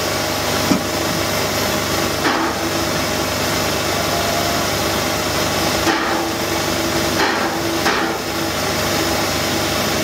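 Wood-fired Hv3 steam locomotive standing with steam up, a steady hiss and hum running throughout, broken by a few sharp knocks, the loudest just under a second in.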